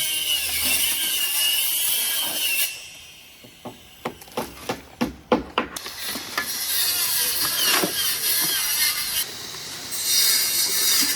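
Hand and tool work on a building site: a high, wavering squeal for about two and a half seconds, then a quick run of sharp knocks or taps, with a hissing noise near the end.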